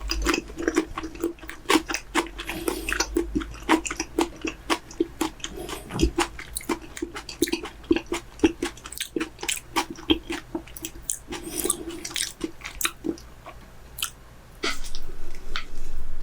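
Close-up chewing and biting: wet mouth clicks and smacks in quick, irregular succession, from chewing raw chicken breast. The sound grows louder and denser near the end.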